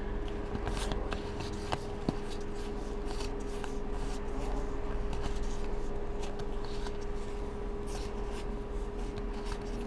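Magic: The Gathering cards being slid across one another and flipped through by hand, with soft scraping and scattered small clicks, over a steady faint hum.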